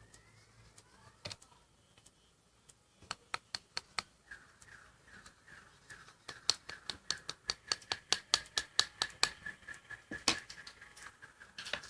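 A spoon clinking against a glass while stirring food colouring into water. A few scattered clicks come first, then rapid clinks of about three to four a second over a steady ringing note, loudest in the middle stretch.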